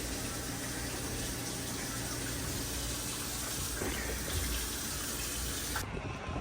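Steady rush of running water, which stops abruptly about six seconds in.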